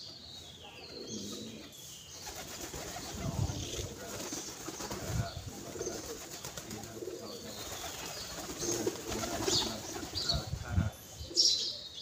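Feral pigeons cooing: several low coos spaced out over a soft background.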